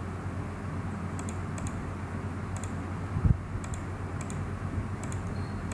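Light clicks from a computer mouse, each a quick pair, several times while settings are picked in software. A dull thump about three seconds in is the loudest event, all over a steady low hum.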